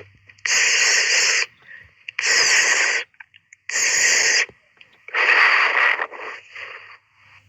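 Five loud, breathy hisses from a person's voice, each about a second long and coming about every one and a half seconds, the last broken into two shorter puffs, in a run of voiced animal-sound imitations.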